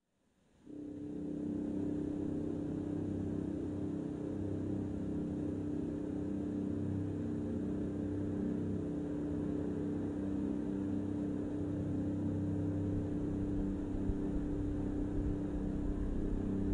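A steady mechanical hum holding one constant pitch over a low rumble, starting under a second in and running evenly.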